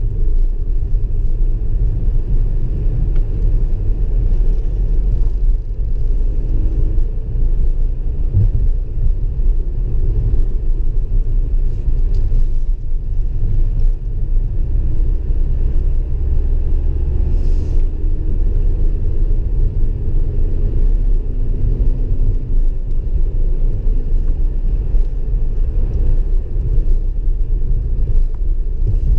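A car's engine and road noise heard from inside the cabin while driving: a steady low rumble, with the engine note rising and falling faintly at times.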